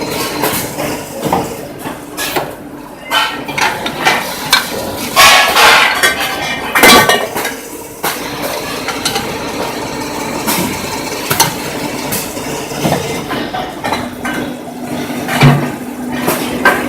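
Metal parts clinking and knocking irregularly, with a steady machine hum underneath: a multi-head drilling and tapping machine at work on metal pieces. A cluster of loud clanks comes about five to seven seconds in.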